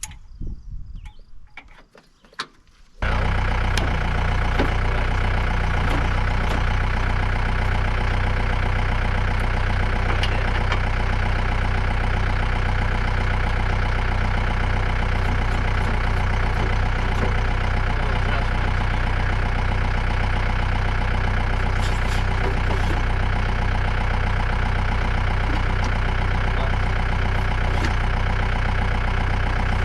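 A few light knocks, then about three seconds in a tractor engine is heard running steadily at a constant speed while the John Deere 485 backhoe is being mounted.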